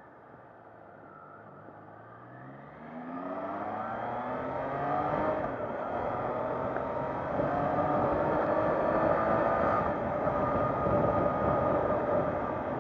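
Triumph Trident 660's three-cylinder engine accelerating hard: quiet at first, then rising steeply in pitch and loudness about three seconds in, with brief dips as it shifts up and then keeps pulling.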